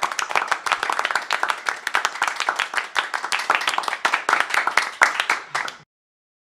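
Applause sound effect: a group of hands clapping in a dense, steady patter that cuts off abruptly near the end.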